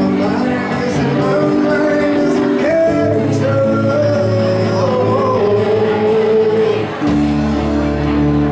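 A live band of keyboards, guitar, bass and drums playing a pop-rock song, with a lead vocal over it.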